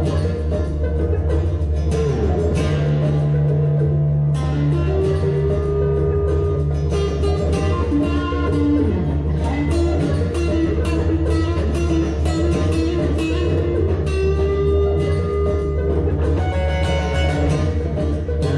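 Didgeridoo on a stand holding a steady low drone while an acoustic guitar is picked over it, with held tones sliding up and down above the drone.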